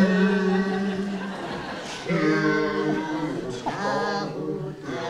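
Men singing a few long held notes without accompaniment.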